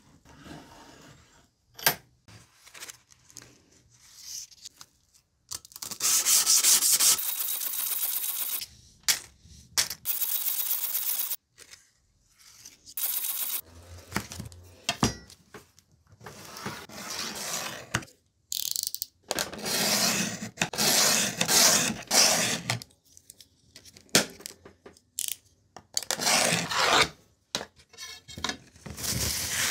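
Blue waterproof P240 sandpaper rubbing and scraping as sheets are handled, in a series of separate hissing bursts broken by abrupt silent gaps.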